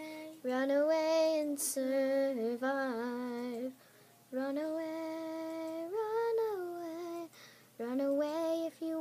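A girl singing a song on her own, unaccompanied. She holds long notes that bend up and down, with short breaks between phrases and a brief pause near the middle.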